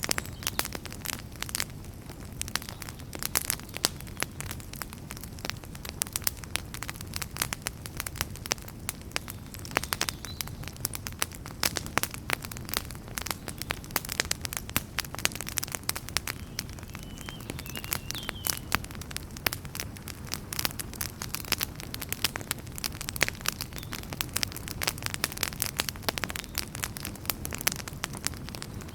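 Wood fire burning in a fireplace: a dense, irregular crackle of sharp pops and snaps from the burning logs over a low steady rumble of the flames.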